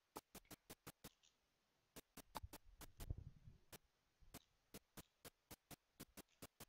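Rapid sharp clicks over near silence, about four or five a second, pausing briefly after the first second and again near the middle, with a faint low thump about three seconds in.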